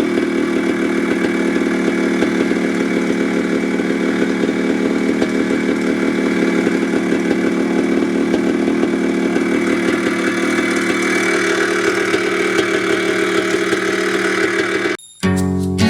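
1982 Maico 490 single-cylinder two-stroke dirt bike engine running steadily. Near the end it cuts off suddenly, and strummed acoustic guitar music begins.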